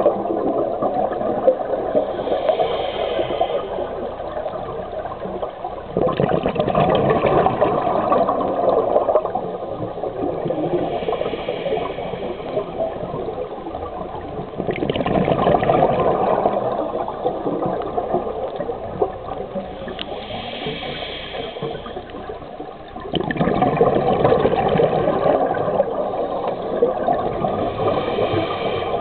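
Scuba diver breathing through a regulator underwater: a short hissing inhale, then a rushing burst of exhaled bubbles lasting a few seconds, repeating about every eight seconds for four breaths.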